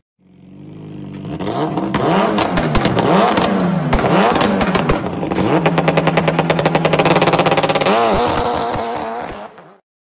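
An engine revving up and down several times, then running at a steadier speed, fading in after a sudden cut and fading out near the end.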